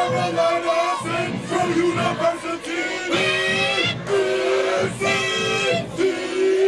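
Group of voices singing a chant in long held notes, in phrases of about a second each.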